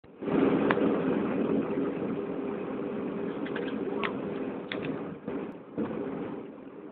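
Airliner jet engines at takeoff power, heard from inside the cabin: a loud steady rushing noise with a low hum under it, starting abruptly a moment in, with a few sharp clicks or rattles.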